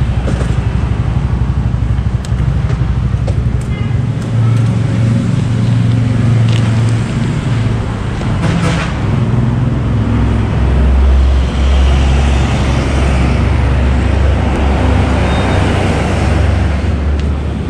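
Road traffic noise: a steady low rumble of passing vehicles on a highway, growing heavier about ten seconds in.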